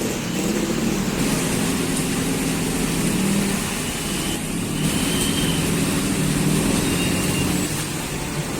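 Heavy rain pouring down steadily over road traffic, with vehicle engines running underneath.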